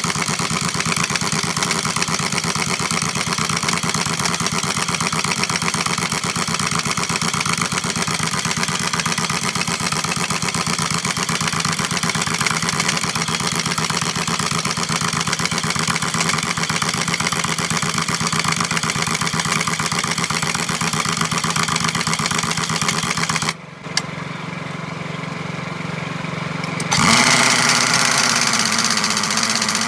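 An engine running steadily. About three-quarters of the way through it drops out abruptly, comes back quieter and rising, then continues louder.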